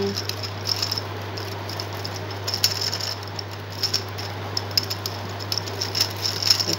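Plastic gear cube puzzle being twisted in the hands: clusters of light clicks and rattles as its geared layers turn, busiest around three seconds in and again near the end.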